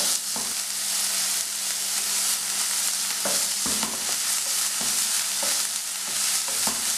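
Chopped onions and green chillies sizzling in oil in a non-stick frying pan, sautéed just until soft, with a spatula stirring and now and then knocking and scraping against the pan.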